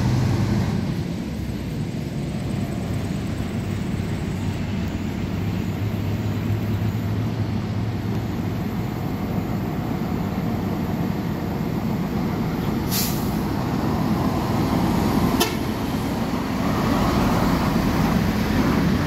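Heavy truck with a lowboy trailer, its diesel engine running steadily as it approaches, louder near the end as it draws close. Two short air-brake hisses come in the second half.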